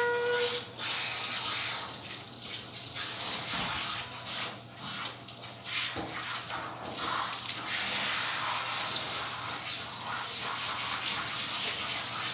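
Water spraying from a grooming-tub hose onto a wet standard poodle as it is rinsed. The spray runs steadily and swells and dips as it is moved over the coat.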